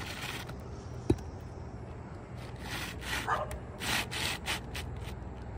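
Brittle Owens Corning three-tab asphalt shingle scraping and rubbing against the gritty, granule-shedding shingles around it as it is slid back into place, in several short strokes. A single sharp hammer knock comes about a second in.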